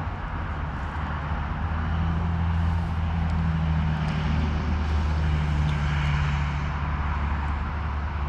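A distant engine drones steadily with a low hum over a soft hiss. It swells a little through the middle and eases off near the end.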